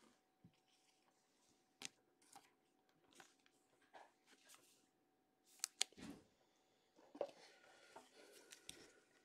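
Faint, scattered rustles and clicks of plastic being handled: a trading card in a soft plastic sleeve being worked into a rigid plastic top loader. There are a few sharper ticks past the middle, with brief rustling after them.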